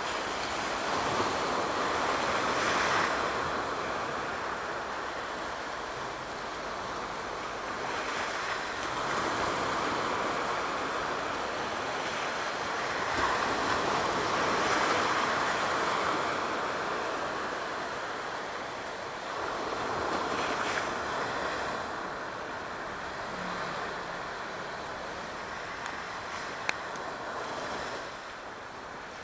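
Aegean Sea waves washing in, a steady surf that rises and falls every few seconds, with a single short click near the end.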